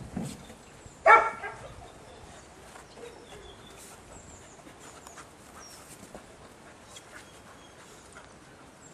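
A dog barks once, short and loud, about a second in, followed by faint rustling and light knocks.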